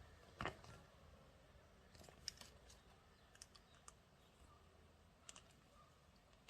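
Faint, scattered clicks and taps of small plastic toy pieces being handled, against near silence; the firmest click comes about half a second in, then a few lighter ticks follow.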